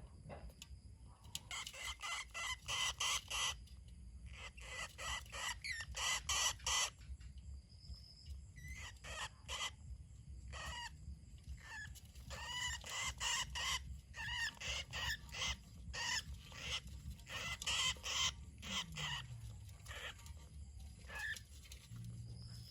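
Budgerigar chicks chirping: rapid, high, raspy calls repeated in quick runs of several notes, with short pauses between the runs.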